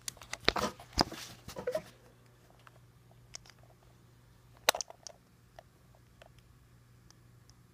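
Bumps and rustling from a handheld camera being moved about during the first two seconds, then scattered sharp clicks, the loudest just under five seconds in, over a low steady hum.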